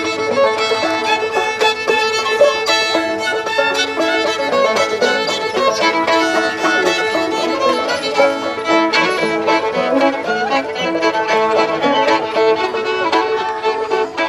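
A fiddle and banjos playing an old-time bluegrass tune together, the bowed fiddle carrying the melody over plucked banjo notes.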